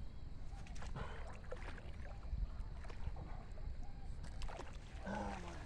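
Water splashing and sloshing at the bank as a hooked pacu is drawn in to the edge, with short knocks from handling the rod and line.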